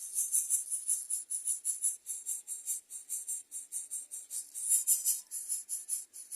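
Rapid, high-pitched chirping pulses, about seven a second, repeated evenly, with a slightly louder cluster around five seconds in.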